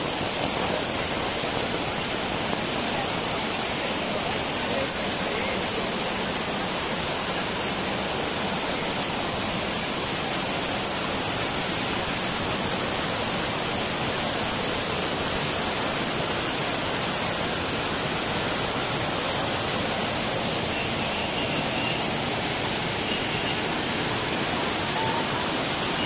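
Small rocky waterfall: water rushing steadily down over wet boulders and splashing into a shallow pool.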